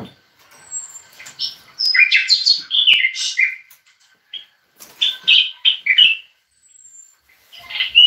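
Caged songbird singing: two bursts of quick, clear whistled notes, the first about two seconds in and the second about five seconds in, with short chirps between them and a brief call near the end.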